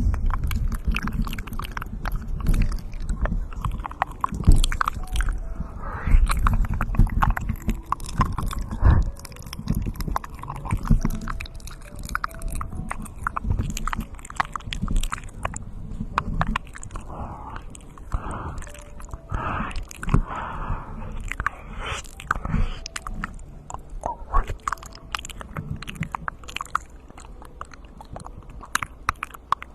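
Close-miked ASMR mouth sounds: a fast, dense run of wet clicks, smacks and tongue pops. They grow gradually quieter toward the end.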